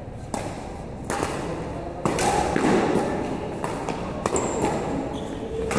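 Badminton rally: rackets hitting the shuttlecock with sharp clicks about once a second, along with players' footsteps on the court floor. There is a brief high squeak about halfway through.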